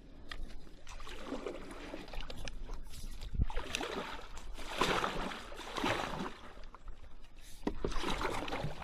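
Paddle strokes swishing through shallow creek water, a stroke every second or two, over the trickle of moving water, with one sharp knock about three and a half seconds in.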